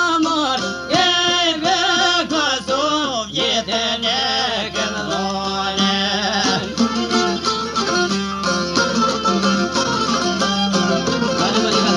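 Live folk music on violin and plucked long-necked lutes. A wavering violin melody leads for the first few seconds, then the plucked strings carry a steady, busy rhythm under held notes.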